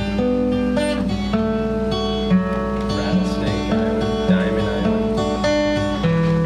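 Acoustic guitar music with strummed chords changing about once a second.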